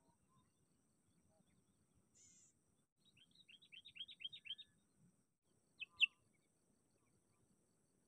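Sooty-headed bulbul calling: a quick run of about ten sharp descending notes that grow louder about three seconds in, then two loud short notes about six seconds in.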